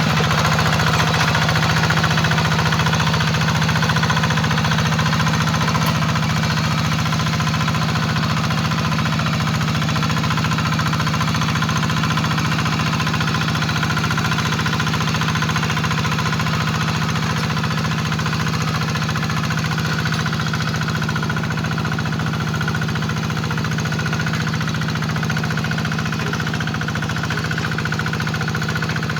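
A hand tractor's single-cylinder diesel engine runs steadily while plowing a rice paddy.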